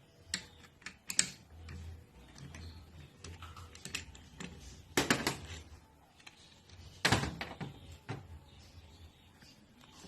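Irregular sharp metallic clicks and knocks from an Allen key, bolts and parts being handled while the pump head of a Kärcher K4 pressure washer is unbolted and taken apart, with two louder knocks about five and seven seconds in.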